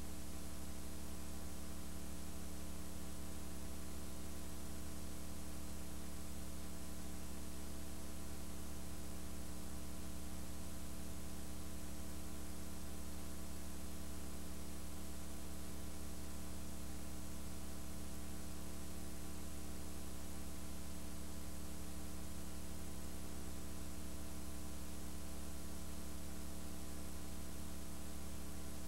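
Steady electrical mains hum with a layer of hiss, unchanging throughout, with no other sound standing out.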